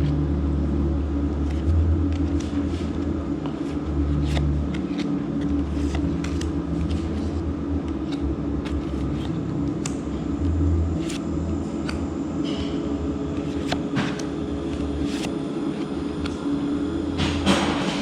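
A steady low mechanical rumble with a constant hum, over which come scattered light clicks and rustles of trading cards being handled, a quick cluster of them near the end.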